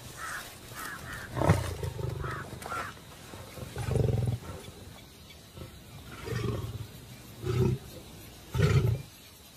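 Asiatic lion roaring: a series of five deep calls, the first the longest, the last three shorter and about a second apart.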